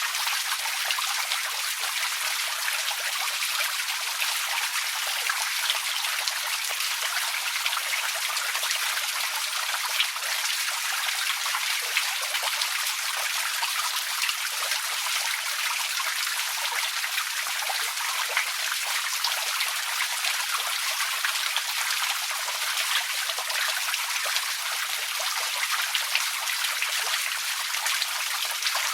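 Outdoor water fountain running steadily, its falling water a continuous bright splashing and trickling made of many small spatters, with almost no low rumble.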